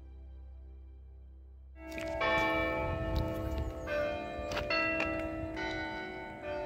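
Soft background music fades out, then about two seconds in church bells start ringing from the basilica tower at Fátima, with several strikes whose tones overlap and ring on.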